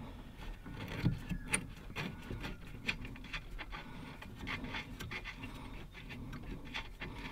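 Spanner working a bolt on the brake master cylinder: irregular small metallic clicks and knocks as the bolt is undone.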